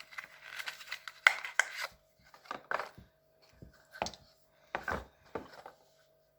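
Tablet box and its accessories being handled: a quick run of clicks, knocks and rustles of cardboard and plastic, then a few separate knocks spaced about half a second to a second apart.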